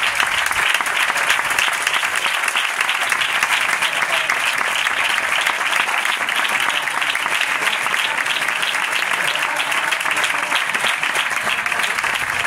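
Audience applauding: a dense, continuous clapping that holds steady throughout.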